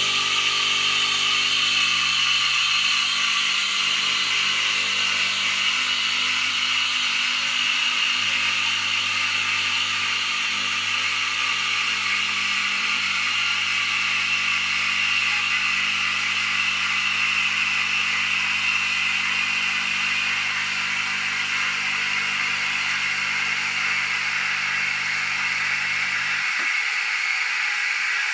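Sage (Breville) Oracle Touch espresso machine: the automatic steam wand hisses steadily as it froths milk in a steel jug, over the low hum of the espresso pump pulling a shot. The pump hum cuts off near the end as the shot finishes, and the steam hiss carries on.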